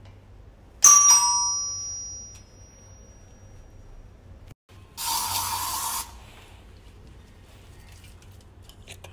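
A doorbell chime strikes once about a second in and rings away. About four seconds later an aerosol disinfectant spray hisses for about a second, sanitizing the delivered parcel.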